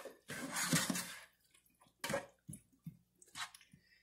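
A spoon stirring chopped leeks and carrots in hot liquid in a pot: wet swishing and squishing for about a second, then a few light knocks of the spoon against the pot.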